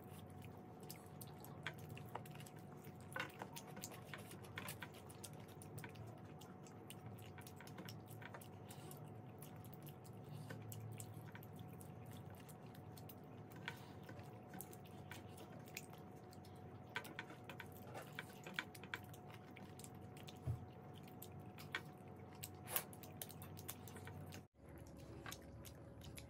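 Quiet eating by hand: fingers working curry and rice on steel plates, and soft chewing, heard as scattered small irregular clicks over a faint steady hum. The sound cuts out briefly near the end.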